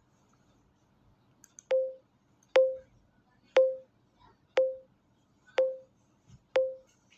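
Smartphone camera app's self-timer counting down: a short beep with a sharp click at its start, once a second, six times, beginning a couple of seconds in.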